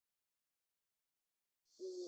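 Complete silence, then near the end a dove starts cooing, over a steady high hiss.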